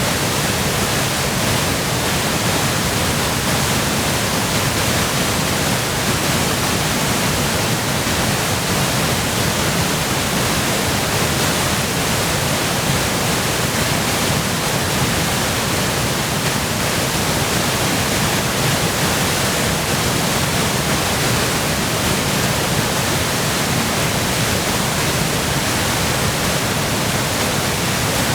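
Waterfall in high flow from spring melt and heavy rain, a loud steady rush of falling water with no breaks.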